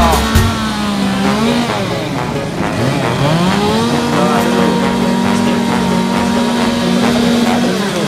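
Two-stroke STIHL chainsaw running at high revs while carving wood. Its pitch sags about a second in, climbs steeply around three seconds in, then holds steady at full throttle until it drops near the end.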